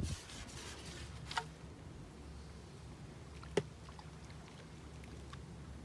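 Handling of a fishing pole as it is unshipped to land a roach: a sharp click a little past halfway and a few light ticks, over a low steady rumble.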